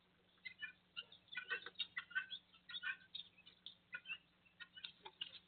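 Songbird singing: an irregular run of short chirps and whistled notes, some in quick clusters, with a faint steady hum underneath.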